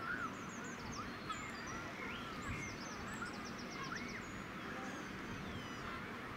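Birds calling over steady outdoor background noise: many short rising-and-falling calls, with quick high trills here and there.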